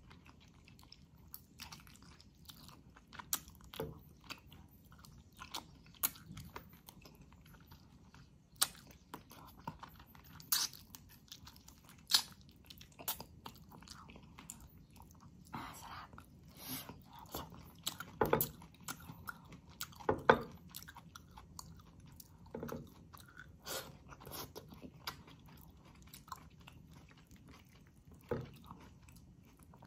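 A person chewing a mouthful of chicken stewed in coconut milk with greens, close to the microphone. Irregular sharp smacks and clicks come every second or two.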